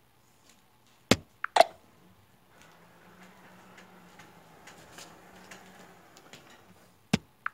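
A few sharp clicks about a second in and two more near the end, with a faint low steady hum in between from the Qbot robot's motors driving the quilting machine head along the frame.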